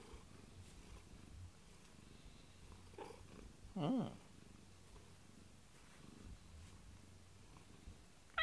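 A domestic cat purring steadily while being stroked, with one short meow about four seconds in.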